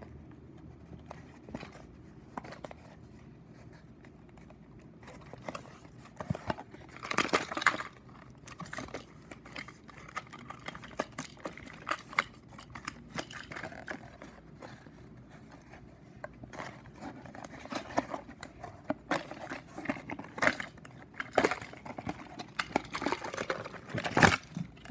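Hands untying wire twist-ties and handling plastic toy packaging: irregular rustling and crinkling with small sharp clicks, busiest about seven seconds in and again over the last several seconds.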